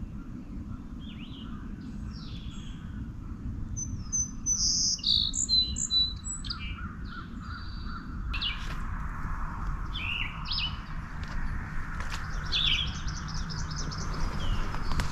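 Songbirds chirping and calling in many short notes, with a distant wild turkey gobble near the start.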